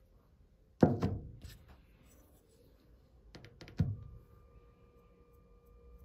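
Copper pipe and fittings being handled and fitted at a compressor tank's ball valve: two sharp knocks about a second and three seconds apart, each with a few lighter clicks around it. A faint steady tone comes in about four seconds in.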